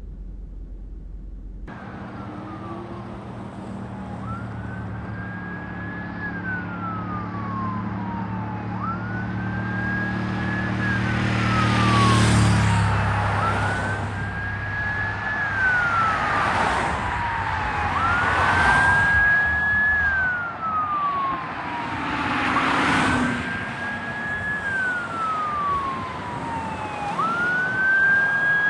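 Ambulance siren on a slow wail, each cycle a quick rise and a long falling sweep, repeating about every five seconds, with the vehicle's engine and road noise growing louder as it passes.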